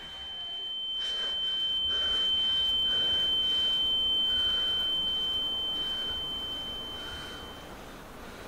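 A single high-pitched steady tone, an ear-ringing sound effect conveying mental distress, swelling over the first couple of seconds and fading out near the end.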